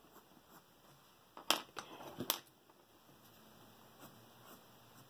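Colored pencil scratching lightly on sketchbook paper, with a few sharp clicks about two seconds in.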